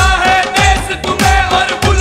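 Background music with a steady beat, about two low drum hits a second that bend down in pitch, under a held melody.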